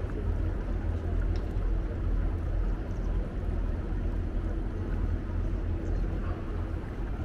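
River tour boat's motor running steadily: a continuous low rumble, with a faint steady hum over it from about a second in.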